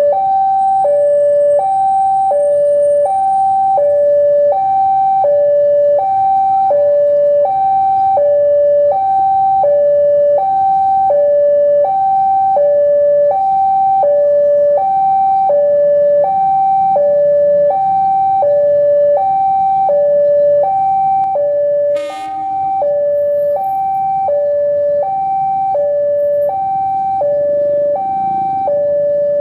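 Railway level-crossing alarm: an electronic two-tone warning, high and low tones alternating in a steady rhythm, over the low rumble of a diesel locomotive moving slowly. One sharp click about 22 seconds in.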